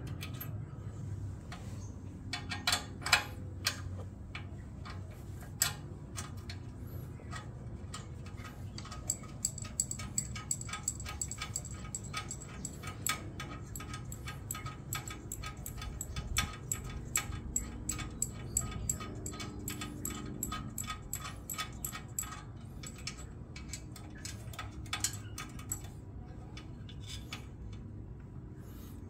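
Small metallic clicks and ticks of hand tools working the adjuster nuts on a motorcycle's exhaust-valve cable, coming in quick runs through the middle of the stretch.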